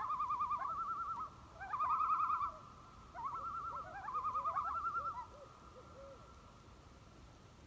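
Common loon giving its tremolo call, a rapid wavering laugh repeated in three runs that stop about five seconds in.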